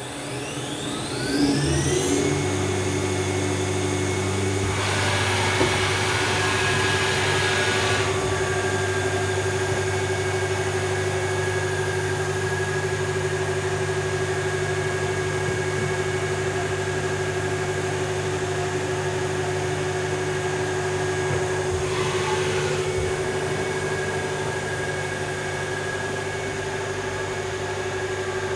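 STYLE BT-2000 CNC machining centre's spindle running up to speed with a rising whine over about two seconds, then running steadily with a constant hum and whine. About five seconds in, a rushing hiss joins for about three seconds, and comes again briefly later on.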